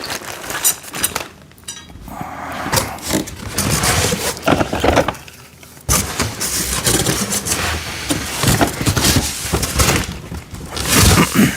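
Metal rack pieces and plastic storage bins being unpacked by hand and set aside: a run of irregular clattering knocks and scraping, with a short lull about halfway through.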